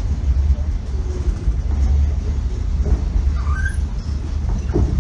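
Passenger train running: a steady low rumble heard from inside the carriage.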